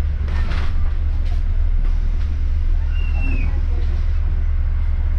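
Steady deep drone of a moving bus's engine and road noise, heard from inside the bus, with faint chatter in the background.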